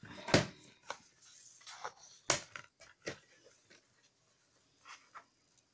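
Cardstock being handled and repositioned on a paper trimmer: a handful of sharp taps and knocks with short paper rustles, the loudest about a third of a second in and another a little after two seconds, then only faint small handling sounds.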